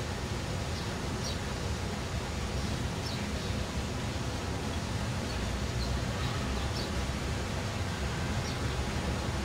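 Steady outdoor background noise with a low rumble, with faint short bird chirps now and then.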